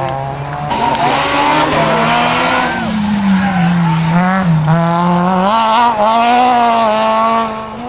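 Citroën Saxo rally car's engine revving hard under a flat-out pass, its pitch climbing and dropping through gear changes, with a dip about four seconds in as it brakes, then pulling hard again. Tyre noise rises while it accelerates away, and the sound fades slightly near the end.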